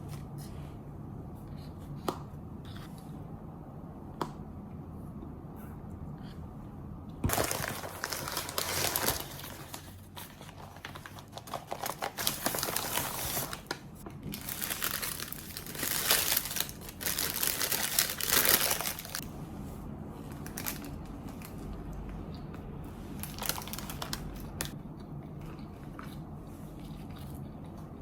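Crinkling and rustling of packaging being handled, in irregular bursts over about twelve seconds in the middle, over a low room hum.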